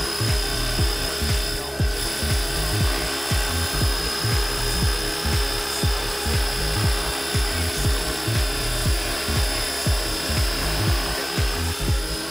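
Radio-controlled scale Huey helicopter hovering low, its rotor head and drive giving a steady high whine. Rapid low thumps, several a second, come from the rotor wash gusting on the microphone.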